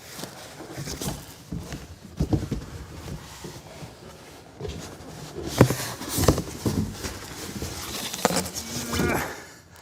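Handling of a boxed computer case and its packaging: rustling with irregular knocks and thumps, loudest a little past the middle.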